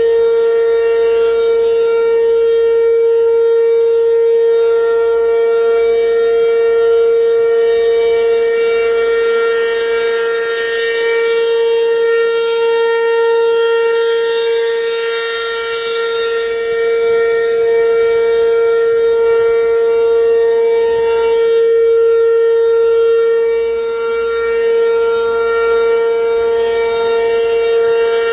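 ASC RM-127 outdoor warning siren sounding the Alert signal: one loud, steady tone held at a constant pitch, swelling and dipping slightly in loudness.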